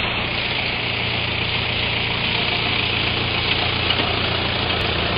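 A truck's engine running steadily at an even pitch, with a steady hiss over it.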